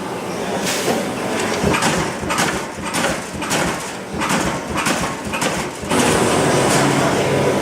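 Amada Aries 222 CNC turret punch press punching sheet metal: a run of sharp strikes, about two to three a second. About six seconds in, the strikes stop and give way to a steady, louder machine noise with a low hum.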